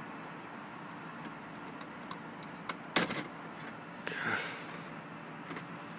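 Plastic clicks and scraping as the BMW Z4's center dashboard air vent housing is worked out of the dash by hand. A sharp click about three seconds in is the loudest sound, and a short scrape follows about a second later, over a steady low hum.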